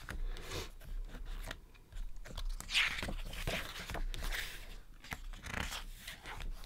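Glossy photobook pages rustling and scraping under fingertips, with a page being turned near the end.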